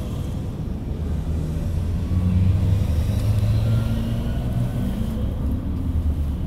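A minibus engine running at idle, a steady low rumble heard from inside the cabin, with other traffic passing outside.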